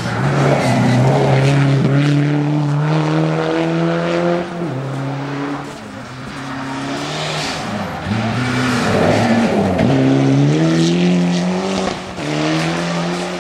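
Two rally cars pass one after the other on a snowy stage. First a Subaru Impreza WRX STI's turbocharged flat-four engine climbs in pitch through quick gear changes as it goes by close. After a dip of a few seconds a second rally car passes, its engine note rising again through the gears.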